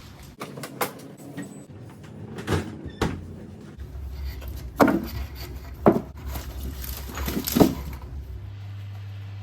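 Household handling sounds, such as cupboard doors and objects being set down: about six sharp knocks and thuds, the loudest three in the second half, over a low steady hum that shifts in tone near the end.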